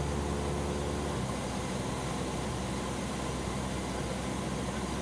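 Cessna 172 Skyhawk's piston engine and propeller running steadily, heard inside the cabin under a wide hiss of air noise; the engine's note changes slightly about a second in.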